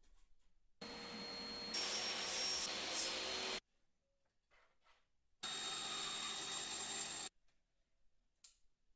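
An electric power tool running in two bursts of a few seconds each, a steady motor whine over a rough noise; the first burst grows louder about a second after it starts.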